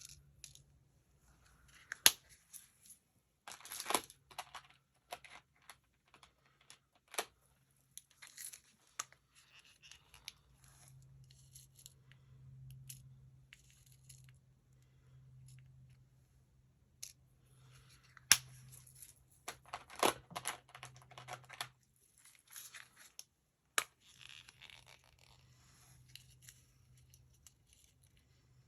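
Handling of paper-craft materials on a work table: scattered sharp clicks and taps and short rustles of paper and small parts, with a faint steady low hum underneath.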